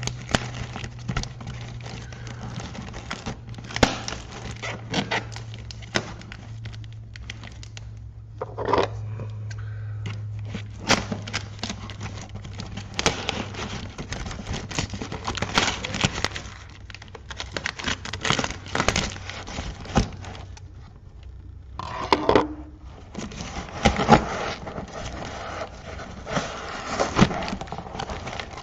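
Cardboard box wrapped in clear plastic and packing tape being torn open by hand: irregular tearing, crinkling and scraping of tape, plastic wrap and cardboard, coming in fits and starts with short pauses.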